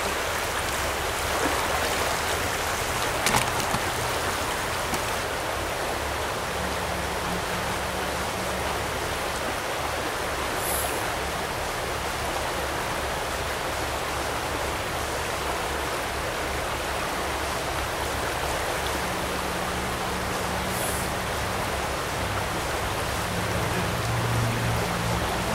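Small rocky stream rushing over stones and riffles: a steady, even rush of water, with one brief click about three seconds in.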